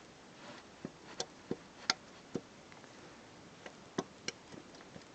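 Irregular sharp metallic clicks, about eight of them, from the first-cylinder connecting rod of a VAZ Oka's two-cylinder engine being rocked on its crankpin. The knocking is the play of a big-end bearing shell that has been completely destroyed after oil pressure was too low.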